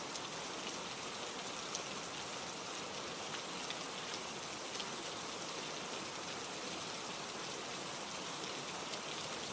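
Steady ambient rainfall, an even hiss of rain with faint scattered drop ticks.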